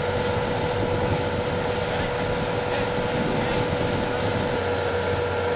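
Steady mechanical hum of a running motor, one constant pitch over a low rumble, with a single sharp click about two and a half seconds in.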